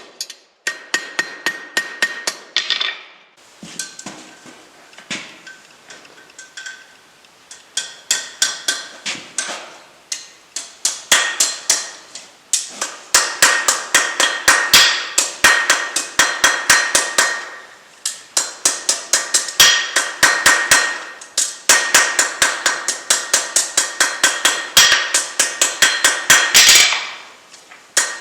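Two-pound rounding hammer striking a hot 1/4-inch steel rod on an anvil, in quick runs of blows about three a second with brief pauses between the runs; each blow rings.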